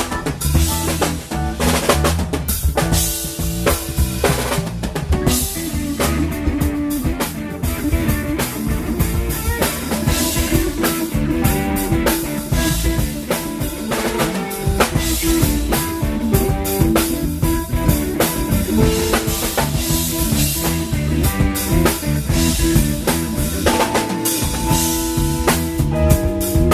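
Live band playing an instrumental during a sound check, the drum kit loud and busy with bass drum, snare and rim hits over bass and other pitched instruments.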